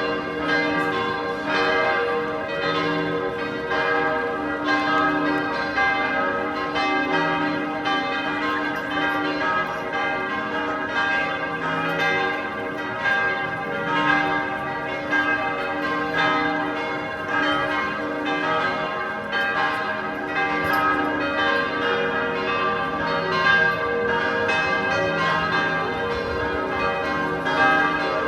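Several church bells ringing together in a continuous peal, their strokes overlapping at many pitches, with a deep bell sounding every couple of seconds beneath the higher ones.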